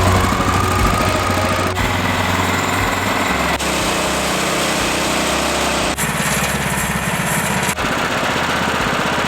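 Small gasoline engine of a portable sawmill running steadily, in several short sections cut together, the tone changing abruptly at each cut about every two seconds.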